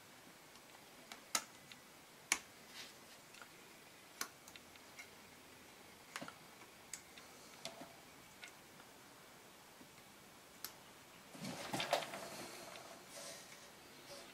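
Faint, scattered light metallic clicks and taps as a rack of four Keihin CV motorcycle carburettors is handled, with a short burst of scraping and rattling about twelve seconds in.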